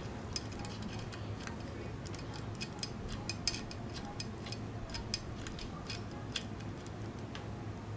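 Light, irregular clicks of a small screwdriver turning a headless set screw in an aluminium timing pulley's hub on a DC motor shaft, over a low steady hum.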